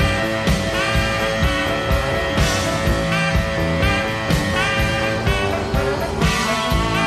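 Rock song in an instrumental passage: guitar playing held and sliding notes over bass and drums at a steady beat.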